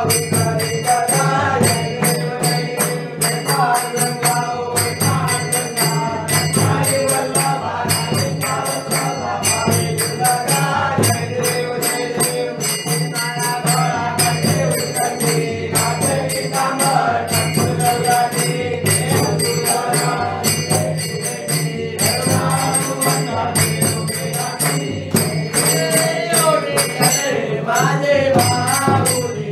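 A group of men singing a Ganesh aarti together in unison, with hand clapping keeping a steady beat of about two strokes a second.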